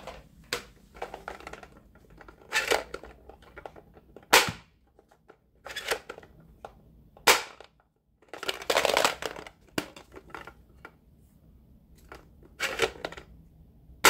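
Plastic dinosaur toy ball gun being cocked and fired, its spring mechanism giving sharp plastic snaps about four seconds in, about seven seconds in and again at the very end, with rattling and scraping handling noises in between.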